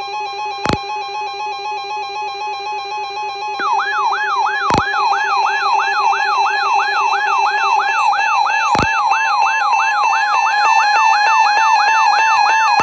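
Weather alert radio alarms sounding for an incoming severe thunderstorm warning: several electronic tones at once, steady pulsing beeps joined about three and a half seconds in by a fast up-and-down siren wail. Three sharp clicks come about four seconds apart.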